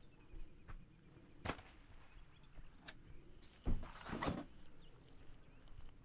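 Footsteps crunching on pine-needle-covered forest ground, with a sharp click about a second and a half in and a thump followed by rustling near the middle as a case and clothes are put down on the ground.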